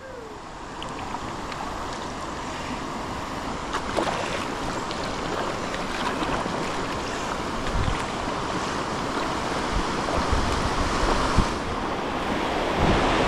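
Rushing water from a river dam's spill, growing steadily louder as the kayak closes on it, with wind on the microphone and a few light knocks.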